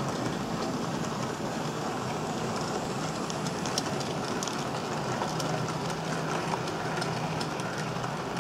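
HO-scale Fleischmann class 41 model steam locomotive running with a train of four-axle tank wagons on model track: a steady whir of the motor and running gear, with small scattered clicks as the wheels roll over the rails and joints.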